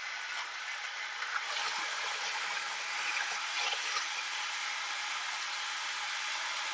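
Countertop blender running steadily, churning a smoothie of watermelon, banana, mint, Greek yogurt and ice into a liquid blend.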